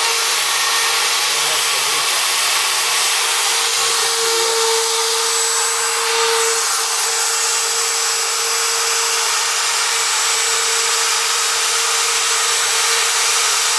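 CNC engraving machine's spindle running steadily as it mills lettering into a plaque, a constant hiss with a steady whine.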